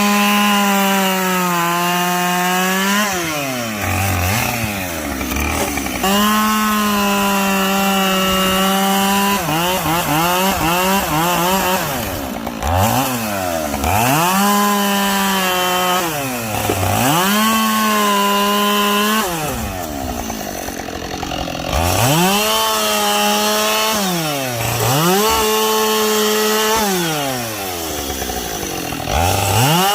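Two-stroke chainsaw bucking logs: it is throttled up again and again, holding a high steady pitch for a few seconds through each cut, then dropping back toward idle between cuts.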